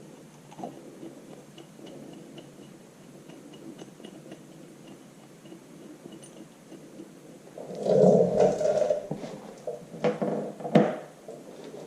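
Metal hub parts being handled on a workbench: quiet fiddling at first, then scraping and clattering about eight seconds in and a sharp click near the end, as the gasket, end cap and bolts of a tractor wheel hub are fitted.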